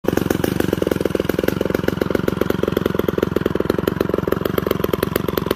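Homelite C-51 direct-drive two-stroke chainsaw engine idling steadily, a fast, even run of firing pulses.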